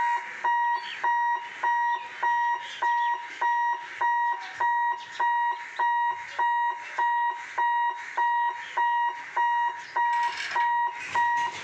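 Electronic warning alarm beeping: a single high steady tone repeated evenly about twice a second, with a rush of background noise growing louder near the end.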